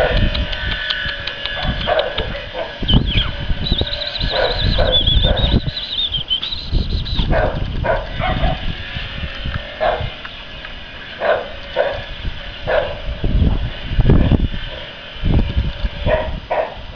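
Puppies yipping as they play, in many short, scattered cries, with a high wavering whistle for a few seconds starting about four seconds in.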